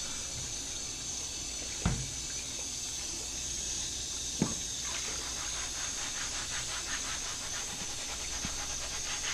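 Kitchen tap running into a stainless-steel sink while a plastic cutting board is washed, with two knocks about two and a half seconds apart. From about halfway through, quick repeated sponge-scrubbing strokes on the board.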